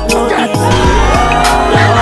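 Music with a deep bass line and a steady drum beat.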